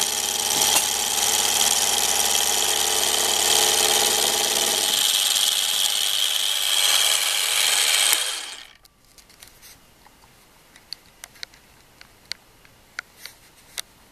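A geared-head mini milling machine with a brushed DC motor running loud while its end mill cuts into the edge of a metal plate. The machine noise stops sharply about eight and a half seconds in, leaving only faint small clicks.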